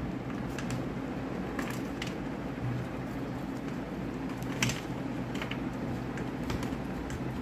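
A knife blade cutting and breaking off thin flakes of pink Lux bar soap, giving scattered crisp cracks and snaps, the sharpest about two-thirds of the way in. A steady low hum runs underneath.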